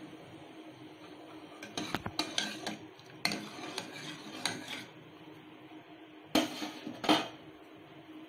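Steel ladle stirring sambar in an aluminium pressure-cooker pot, clinking and scraping against the pot in a quick run of knocks from about two seconds in, then two louder knocks near the end.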